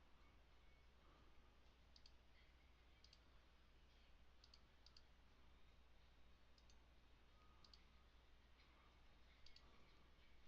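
Faint computer mouse clicks, about ten scattered irregularly over a low steady hum.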